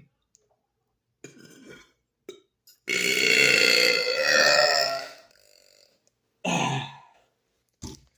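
A man belching: one long, loud burp lasting about two seconds, then a shorter burp about a second and a half later.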